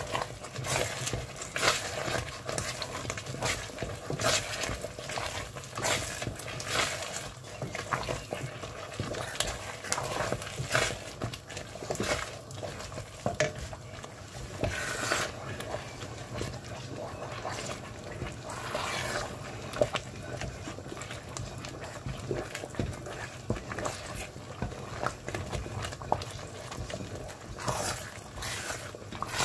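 Wooden spatula stirring and scraping a steel pot of thick, bubbling xalwo, with irregular plops and scrapes.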